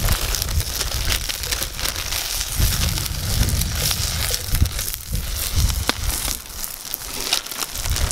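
Wood fire crackling and popping under a grill, with food sizzling in a cast-iron skillet set on the grate over it.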